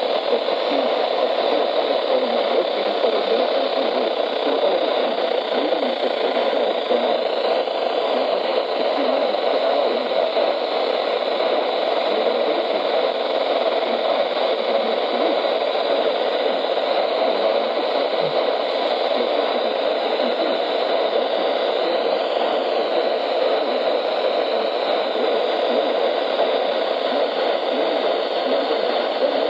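Steady radio static hiss from a weather radio receiver with no voice on the channel, unchanging throughout.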